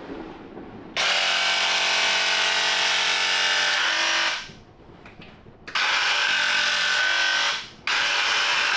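Electric paint sprayer (paint gun) running in three bursts, a steady motor whine under a loud hiss, starting and stopping as the trigger is pulled and released while paint goes onto the walls.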